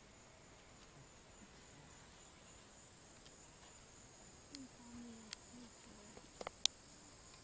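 Steady, high-pitched insect chorus. In the second half come a few faint short low sounds and several sharp clicks, the loudest click near the end.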